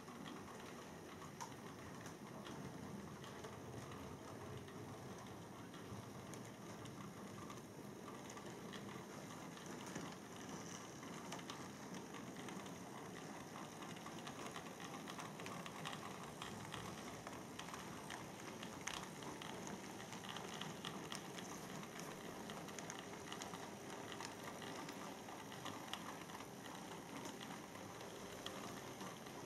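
Model railway train running round the track: a faint steady whirr with many small irregular clicks from the wheels running over the track, as the circuit is tested with power on.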